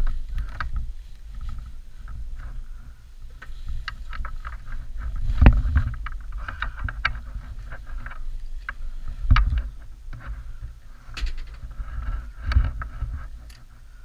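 Handling noise on a head-mounted camera microphone: rustling and knocks of riding gear and gloves against the mic over a low rumble, with three louder thumps.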